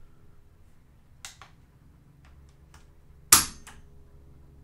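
A few faint clicks, then about three-quarters through one sharp metallic click with a brief ring: the VHS-2 bullpup rifle's trigger breaking and the hammer falling as the trigger is drawn with a trigger pull gauge, dry-fired.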